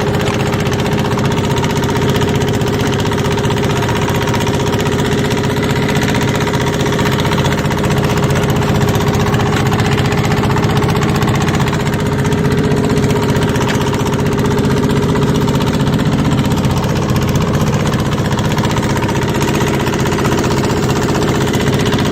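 Boat engine running steadily at an even speed, a constant drone with no change in pitch.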